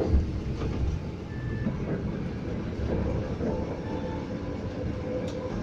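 Steady running noise heard inside a moving Scania coach: the engine running under way with a low road rumble and a few faint steady engine tones.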